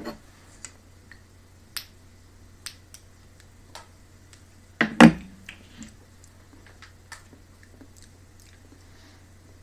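Mouth noises of someone tasting hot sauce: small wet lip smacks and tongue clicks, scattered every second or so, with one much louder short smack or mouth sound about five seconds in.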